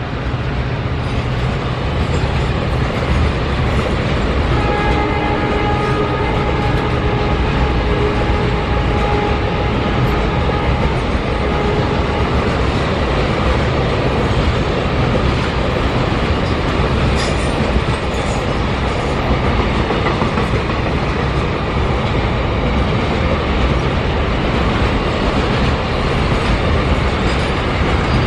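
Double-stack container freight wagons rolling past at speed: a steady, loud rumble and clatter of wheels on the rails. From about five seconds in, a steady ringing tone sits over it for several seconds.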